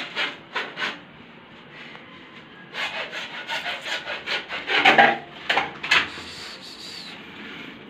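A hand tool rasps on PVC pipe in quick strokes of about four a second. A few strokes come at the start, then a longer run begins about three seconds in and stops about a second before the end.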